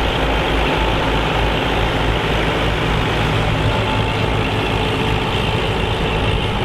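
Massey Ferguson 65 tandem tractor's diesel engines running steadily under load while pulling a plough.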